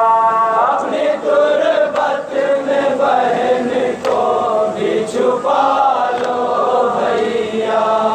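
A group of voices chanting a nauha, a Shia Muharram mourning lament, in long held notes that waver and slide between pitches.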